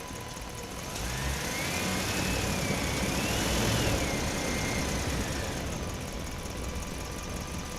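Truck driving in a parking structure: its engine grows louder from about a second in, peaks near four seconds and fades again by about six. A high whine rises and falls over the loudest part.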